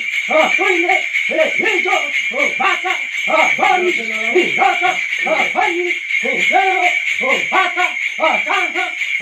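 A dhami (shaman) in trance chanting wordless syllables in an even rhythm, about two a second, over a steady high ringing that runs throughout.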